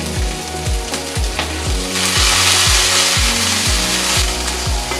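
Snow peas sizzling in hot olive oil in a frying pan, the sizzle swelling loud for about two seconds in the middle as they are stirred with a spatula. Background music with a steady beat runs underneath.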